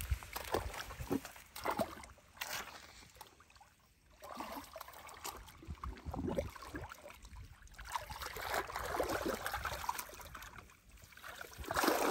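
Muddy water sloshing and splashing as hands and arms churn through shallow mud and water, in irregular strokes. It goes quiet briefly about four seconds in, then the splashing grows more continuous, loudest near the end.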